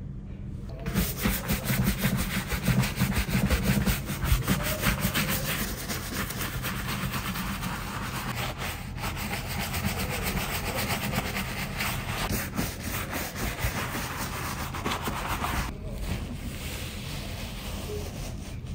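Wooden-backed scrub brush scrubbing a lathered leather boot with a cleaning foam, in quick, scratchy back-and-forth strokes. Near the end the brushing stops and a paper towel rubs softly over the wet leather, wiping off the lather.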